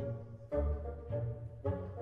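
Background music with pitched instrumental notes, a new note or chord landing about every half second.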